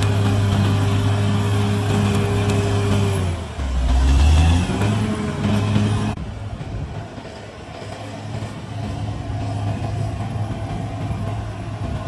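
CAT D6R bulldozer's diesel engine running steadily, then dropping in pitch with a heavy low rumble a few seconds in and climbing back up. About halfway through, the sound changes abruptly to a quieter, steady engine.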